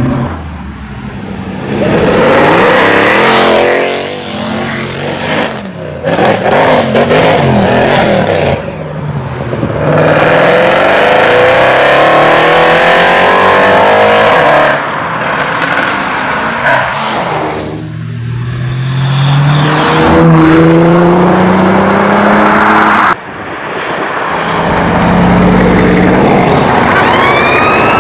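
Sports cars, among them a widebody Mitsubishi Lancer Evolution and a Mercedes C63 AMG, accelerating hard away one after another, their engines revving up through the gears with rising pitch. A police siren starts wailing near the end.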